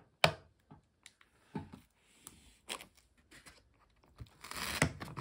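A sharp click shortly after the start, then scattered small taps while an instant cup noodle is handled. Near the end comes a crinkly tearing rustle as its paper lid is peeled back.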